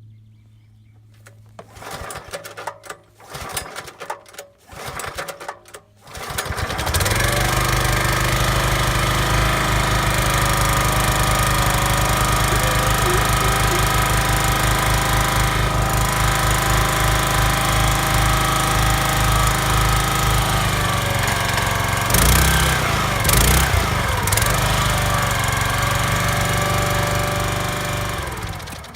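The Kellfri ATV backhoe's small Chinese engine turns over in several short, uneven bursts, catches about six seconds in, then runs steadily. Its sound changes briefly about two-thirds of the way through, and it stops just before the end. This is a test run after debris that got in through the carburetor was removed, with the head gasket known to be damaged.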